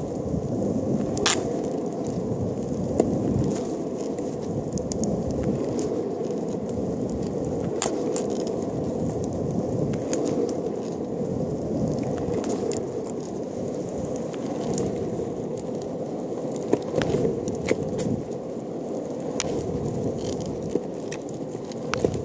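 Longboard wheels rolling steadily over smooth tarmac: a continuous rumble with scattered sharp clicks and ticks.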